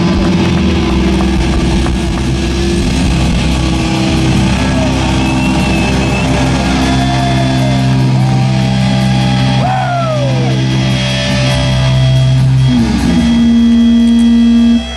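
Live heavy metal band with distorted electric guitars and bass holding long, loud notes and sliding pitches over drums. A note slides up and is held about 13 seconds in, then the band stops together near the end: the close of a song.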